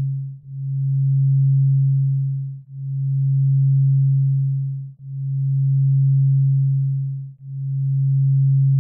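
A synthesized theta brainwave tone: one low, pure electronic tone at a fixed pitch, swelling and fading in slow pulses about every two and a half seconds.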